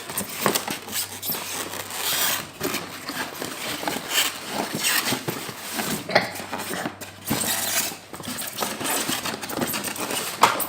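Packaging being torn and handled: dense rustling, crackling and small plastic clatters of polystyrene, cardboard and wrapping as a toy RC car is pulled out of its box.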